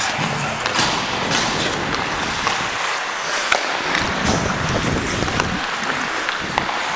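Ice hockey play on a rink: skate blades scraping and carving the ice in a steady noisy rush, with scattered sharp clacks of sticks and puck.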